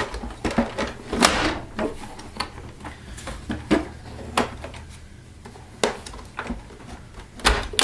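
Plastic housing parts of a Miele S5311 vacuum cleaner knocking and clicking as a part is worked and pushed into place to clip on. There are about half a dozen sharp knocks, irregularly spaced.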